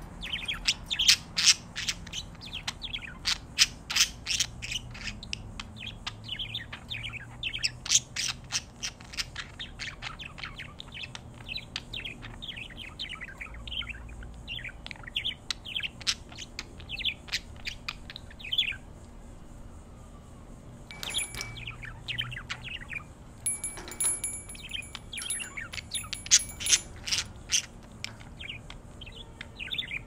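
A pair of pet budgerigars chattering with rapid, rising and falling chirps and warbles, with a short pause a little past the middle.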